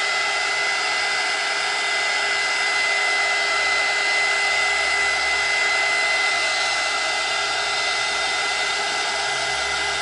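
Handheld blow dryer running steadily, a rush of air with a steady high whine, drying a fresh coat of paint.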